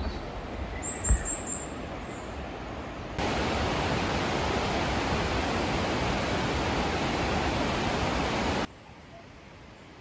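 Steady rush of a mountain stream, cutting in abruptly about three seconds in and cutting out abruptly near the end. Before it, quieter outdoor noise with a low thump and a few quick, very high chirps about a second in.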